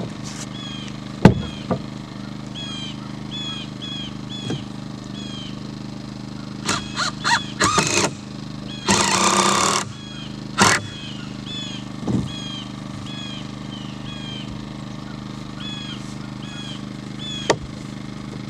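Framing work on a wooden post-and-beam build: sharp knocks and a flurry of clatter from lumber being handled, and a harsh burst about a second long near the middle. A steady low hum runs underneath, and a bird chirps over and over.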